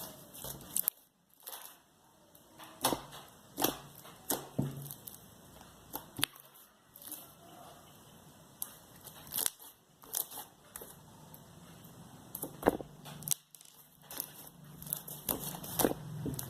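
Large mass of slime being kneaded and stretched by hand, making irregular sharp clicks and sticky pops.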